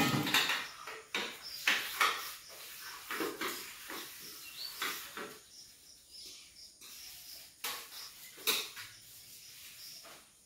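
Dishes and utensils being handled: a series of irregular clinks and knocks as they are picked up and set down, the loudest right at the start.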